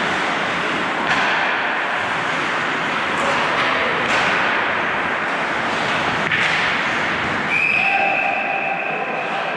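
Ice hockey play around the goal: a steady din of skates and sticks on the ice, with a few sharp knocks of stick, puck or boards. About seven and a half seconds in, a referee's whistle blows and is held for about two seconds, stopping play after a scramble at the net.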